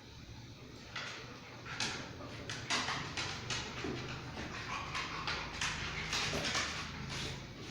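Dogs playing: a busy run of quick scuffling and scratching noises, starting about a second in.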